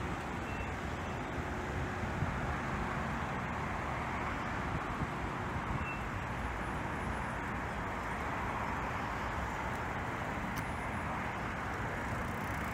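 Steady road traffic noise from a queue of slow-moving cars, vans and trucks, a hum of engines and tyres with no single vehicle standing out.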